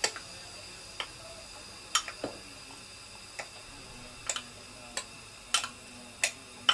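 Light clinks and taps of a spoon and a small ceramic bowl against a glass as cornflour is tipped into milk, about one a second at uneven spacing.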